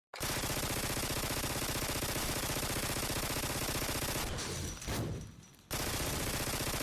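Rapid automatic gunfire sound effect, a continuous fast stream of shots at an even level that breaks off a little over four seconds in and starts again near the end.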